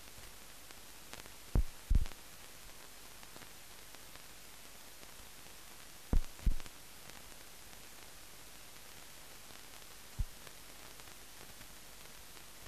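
Steady hiss from the empty sound track of a silent film, broken by short low thumps: two pairs, about a second and a half in and about six seconds in, and a single one near the end.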